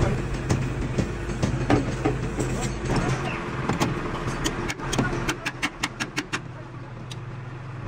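A steady low engine or machine hum with voices in the first half, then a quick run of about a dozen sharp knocks over two or three seconds, typical of hand work in a truck workshop.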